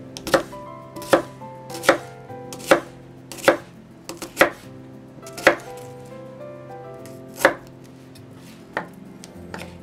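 Kitchen knife slicing through an onion and knocking on a wooden cutting board: a series of sharp knocks about one a second, spreading out in the second half. Soft background music underneath.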